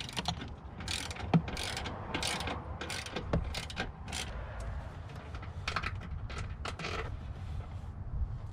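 Hand socket ratchet on an extension clicking in short strokes as a bolt is worked loose. The strokes come about twice a second at first, then fewer and further apart.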